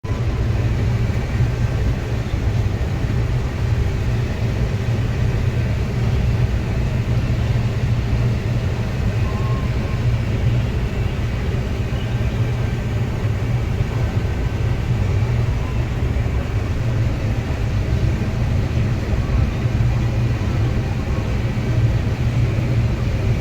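Combine harvester running steadily while harvesting corn, a constant low engine and machinery rumble with no change in pace.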